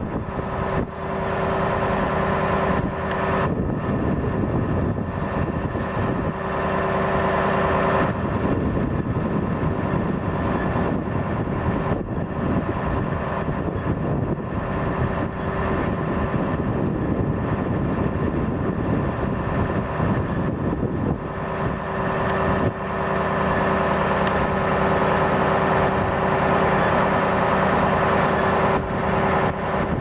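Mercedes-Benz 2429 truck's diesel engine running steadily, driving the Schwing concrete pump's hydraulics as the boom unfolds. The engine note and a hydraulic hum shift a few times as the load changes.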